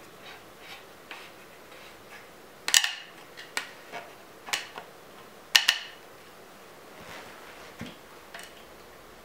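Small beech knob on its bolt being turned and tightened against a wooden upright: a handful of sharp wooden clicks and taps, the loudest about three and five and a half seconds in. The knob tensions the clamp that holds the lamp's arm.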